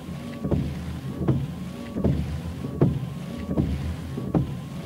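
Car windscreen wipers sweeping, heard from inside the car. There is a knock at each end of the stroke, about every three-quarters of a second, and a faint thin tone rides on the sweeps over a steady low hum.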